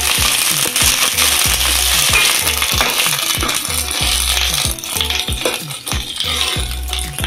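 Chopped onions sizzling in hot oil in a kadhai while a steel spatula stirs them. The sizzle thins out about two-thirds of the way through. Background music with a steady beat runs underneath.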